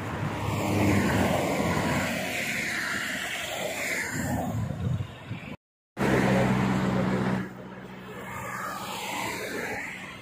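Motorway traffic passing at speed, a rushing sound that swells and fades as vehicles go by. A steady engine hum comes in about six seconds in and drops away about a second and a half later, after the sound cuts out briefly.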